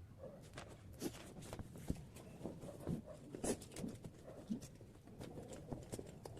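Faint, irregular taps and clicks of schoolwork materials being handled on a desk.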